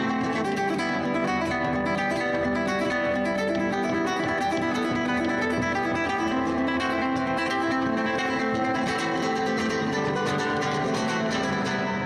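Background music: plucked acoustic guitar with quick, continuous picked notes.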